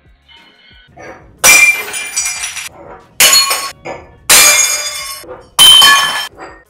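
IKEA drinking glasses knocked off a table, smashing one after another on a ceramic tile floor: four loud crashes about a second or so apart, each trailing off in a tinkle of glass shards.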